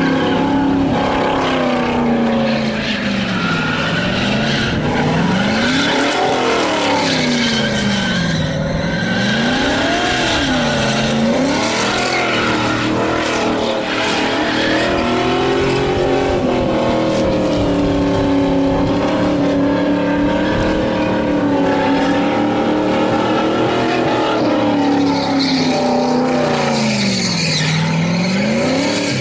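Holden Commodore V8 held at high revs in a burnout, the rear tyres spinning and screeching against the pad. The revs drop and climb back again several times.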